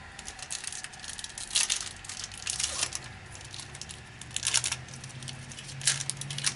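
Trading card packaging being torn open and crinkled by hand, in several short irregular rustling bursts.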